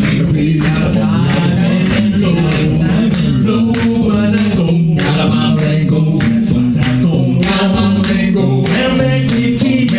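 Four men singing a cappella in close harmony, a steady low bass and held chords under a wavering lead voice.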